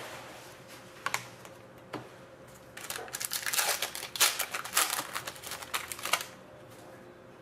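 Trading cards and their packaging being handled: two single clicks, then about three seconds of dense dry crackling and clicking.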